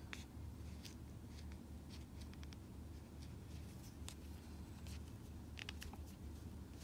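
Faint scattered clicks and soft rustles of a crochet hook working yarn, over a steady low hum.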